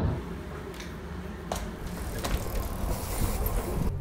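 Train running along the track, a steady rumble with sharp clicks about every three-quarters of a second.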